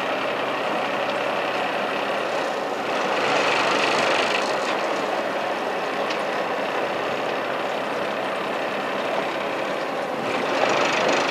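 Small fishing boat's engine idling under a steady rushing noise of wind and sea, swelling slightly about three seconds in and again near the end.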